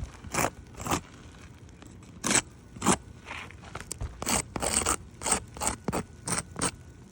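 Flat pry bar scraping and prying under asphalt shingles to break their sealant strips: about a dozen short, sharp scrapes, spaced out at first and coming faster in the second half.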